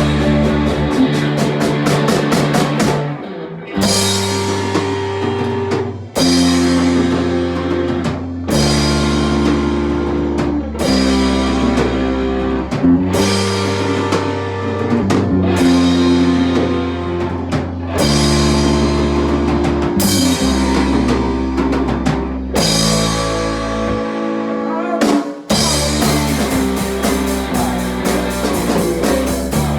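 Rock music with a full drum kit, bass and guitar playing sustained chords that change every couple of seconds. The band drops out briefly twice.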